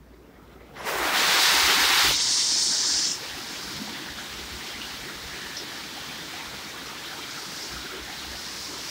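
Very heavy rain pouring onto garden leaves, an even steady hiss. It starts suddenly under a second in with a much louder rush of noise lasting about two seconds, then settles to a steady downpour.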